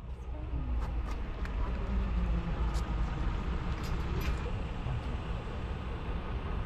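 Steady low outdoor rumble with a few faint clicks, rising over the first second and then holding level.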